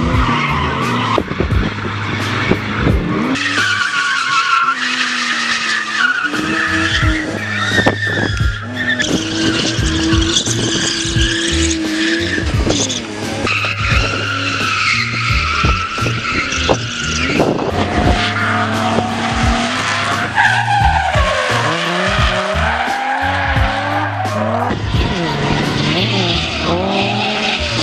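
Drift cars on track, engines revving hard with rising and falling pitch and tyres squealing as they slide.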